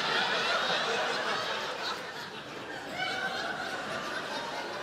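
A large audience laughing, the laughter easing off a little in the second half.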